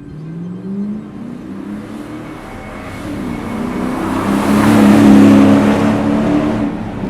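Car engine and exhaust accelerating, its pitch climbing and the sound growing louder to a peak about five seconds in, then fading off.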